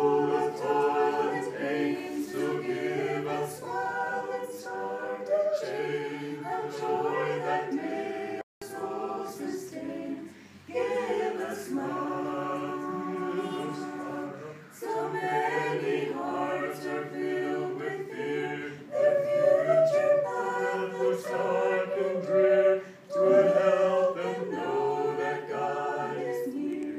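Small mixed group of Mennonite men and women singing a hymn a cappella in harmony, several voices moving together, with a sudden brief break in the sound about eight seconds in.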